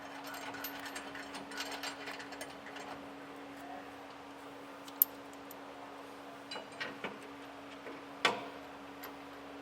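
Light metallic clicks and ticks of frame-bracket bolts and hardware being fitted by hand and started loosely into the truck's frame rail, with a sharp click about five seconds in and a louder knock near the end. A steady low hum runs underneath.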